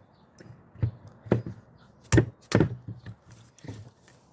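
Irregular knocks and clunks of metal parts being handled and fitted together as a pin is worked into place, about half a dozen in all, the two loudest close together midway.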